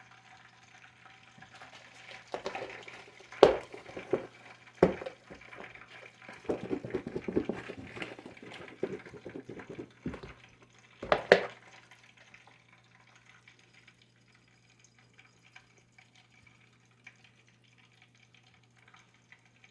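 Cooking oil heating in a pan on the stove, crackling faintly, while pork chops are handled in a bowl of seasoned flour, with a few sharp knocks and a stretch of rustling and clatter around the middle.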